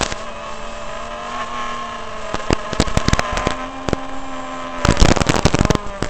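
X220S quadcopter's brushless motors whining steadily, the pitch stepping up slightly about three and a half seconds in, with harsh crackling bursts right at the start and again about five seconds in.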